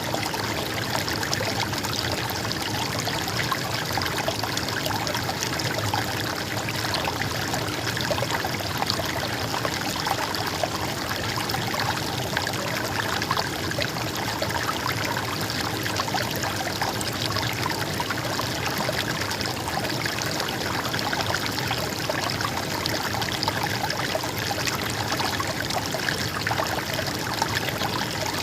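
Steady trickling and babbling of a stream's flowing water, running evenly without a break.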